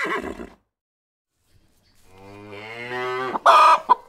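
The tail of a horse's whinny, falling in pitch, in the first half-second. After a second of silence, a cow's long low moo, ending in a louder, harsher burst near the end.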